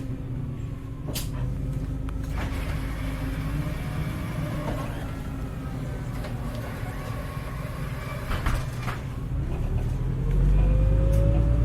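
Heuliez GX317 LPG city bus heard from on board, its engine running low and steady with a few short rattles and knocks. About ten seconds in, the engine gets louder and a rising whine climbs as the bus accelerates.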